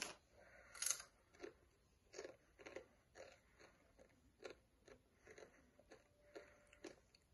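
Faint crunching of kettle-cooked potato chips being bitten and chewed: a string of short, irregular crunches, the loudest about a second in.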